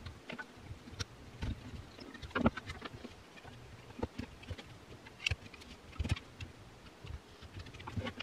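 Scattered small clicks and taps at irregular intervals from handling small parts: the long Torx T15 screws and the plastic handle housing of a cordless reciprocating saw being taken apart.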